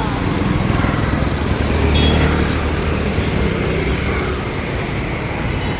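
Busy road traffic with vehicle engines running past steadily, a low rumble swelling as a heavier vehicle passes about two seconds in.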